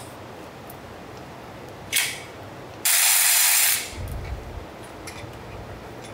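Power ratchet spinning out the bolts of the downpipe bracket on a transmission: a short burst about two seconds in, then a louder run just under a second long about three seconds in. A low rumble follows.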